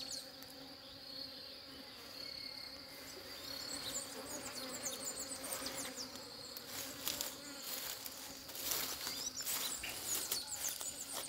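Many bees buzzing as they forage on flowering mustard, a steady low drone. A steady high-pitched trill runs over it, with brief high chirps early on, and crackling rustles come in over the second half.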